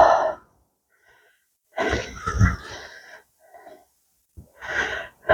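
A man breathing heavily in several breathy exhales, with a falling, voiced sigh that ends just after the start.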